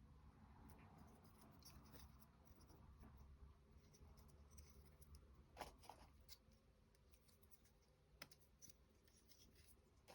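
Near silence, with scattered faint clicks and light scratching of small wooden clock-kit parts being handled and fitted, two clicks close together a little past halfway and another near the end.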